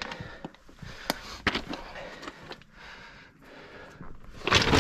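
Boots and hands knocking and scraping on loose rock during a scramble, with a few sharp clicks and some heavy breathing. A louder burst of scraping and clatter comes near the end.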